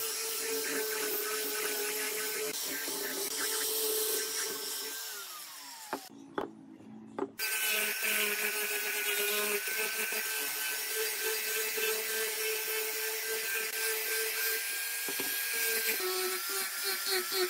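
Electric angle grinder with a sanding disc sanding wood: a steady high motor whine with a scratchy rasp of the disc on the grain. About five seconds in the motor winds down and falls quiet; after a short pause the grinder runs again, sanding the edge of a small board.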